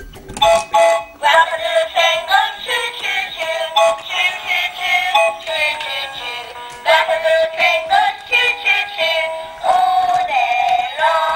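Battery-powered Peppa Pig toy train playing a tinny electronic tune with a sung melody from its small built-in speaker.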